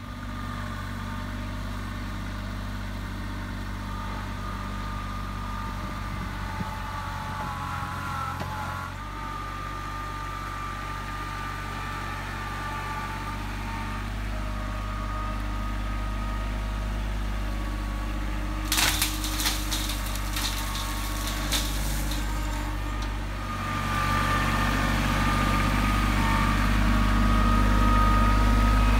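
Compact tractor engine running steadily, a low even hum. About twenty seconds in there is a brief burst of rattling clicks, and the engine grows louder in the last five seconds as the tractor comes closer with its loaded bucket.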